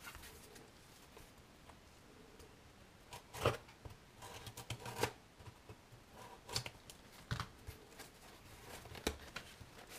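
Hands handling a small cardboard shipping box: faint scuffs and a handful of scattered light clicks and taps as it is turned over and worked at to get it open.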